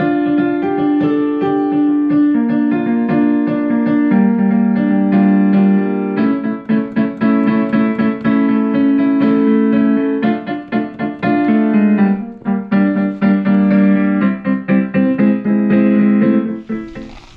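Background music played on piano, with held chords and rapid repeated notes; it fades out near the end.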